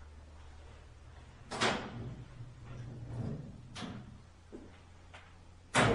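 A series of irregular knocks and bangs, like doors or objects being handled in a room, the loudest near the end, over a low steady hum.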